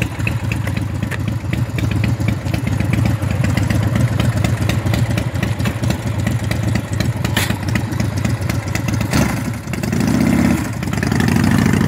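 S&S 117ci V-twin engine of a Big Dog chopper idling with an uneven pulsing beat, with a single sharp click about seven seconds in. Near the end the engine note changes and rises twice as it is revved.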